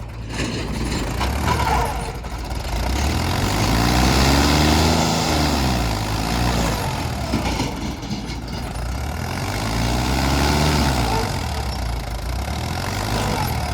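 Tractor engine running steadily and twice revved up and let back down, the pitch climbing and falling each time.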